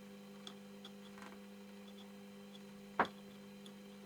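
Steady low electrical hum with a few faint ticks and one sharp click about three seconds in, as multimeter probes are touched to a TV remote control's circuit board in a continuity test. No continuity beep sounds: the track tests open circuit.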